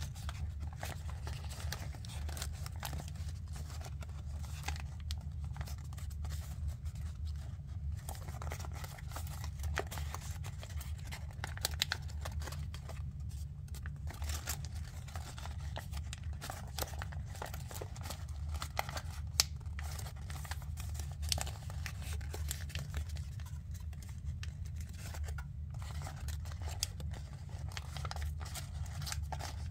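Origami paper crackling and rustling as fingers fold and pinch its creases, with scattered small crisp clicks and a few sharper ones. A steady low hum runs underneath.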